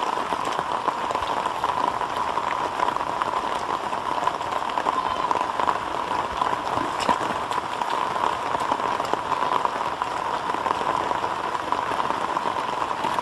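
Steady, dense patter of rain falling on wet ground and water, with a steady droning tone running underneath.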